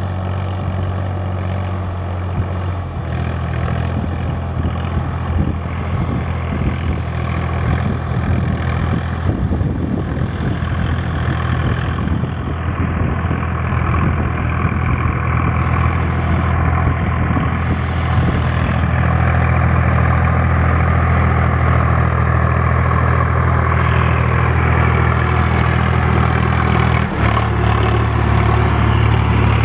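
Sonalika DI 745 III Sikander tractor's 50 hp diesel engine running steadily under load while driving a rotavator through a flooded paddy field, growing louder as it comes closer. A sharp click and a slight change in the engine note near the end.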